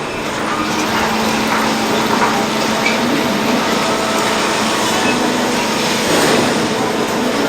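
Sawmill machinery running: a loud, steady mechanical noise with a constant low hum underneath.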